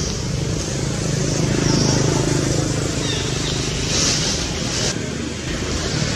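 Steady low rumble of motor traffic in the background, with a few brief high chirps.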